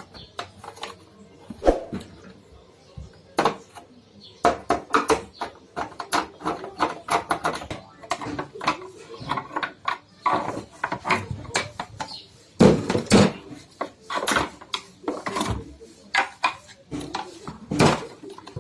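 Irregular clicks, taps and knocks of hard plastic parts being handled and prised apart as the switch buttons are taken out of a vacuum cleaner's housing.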